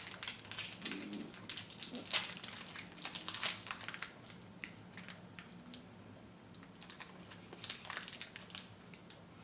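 Plastic wrappers of individually wrapped hard candies crinkling as two people unwrap them by hand. The crackles are irregular, thick over the first few seconds and thinning out toward the end.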